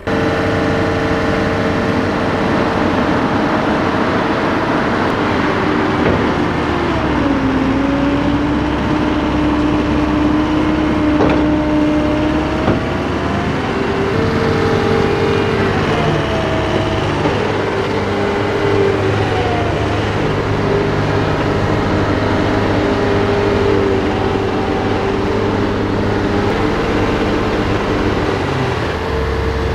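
Heavy diesel machinery running: a Komatsu hydraulic excavator and a compact track loader. The engine note dips and recovers several times as the hydraulics take load, with the excavator working to lift the loader out of a wet ditch where it is stuck.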